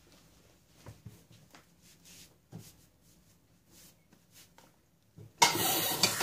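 A few faint scuffing steps, then about five seconds in a tap is turned on and water runs in a steady rush to wash paint off hands.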